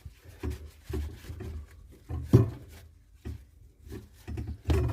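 Irregular knocks and rubbing from hands working around a copper pipe, wiping it clean before a compression repair coupler is fitted, with a sharper knock about halfway through and another near the end.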